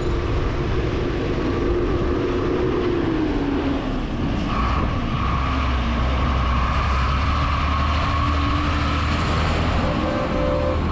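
Motor vehicle engine running close by on the road. Its pitch drops about three seconds in, then it settles into a deep, steady engine note with a higher whine from about five seconds in.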